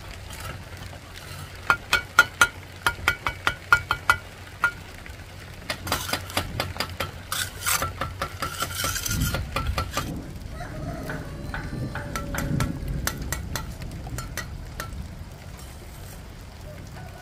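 Repeated sharp metal clinks and taps, each with a brief ring, in quick runs through the first few seconds and again about six to eight seconds in, followed by scraping and a low rumble.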